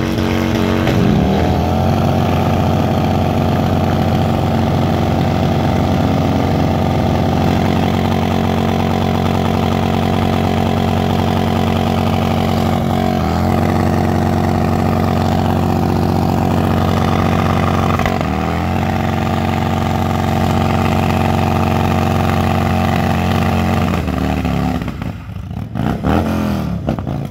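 Cruiser motorcycle doing a burnout: its engine held at high, steady revs while the rear tire spins in place. The revs dip briefly twice, then near the end drop off, followed by a couple of short revs.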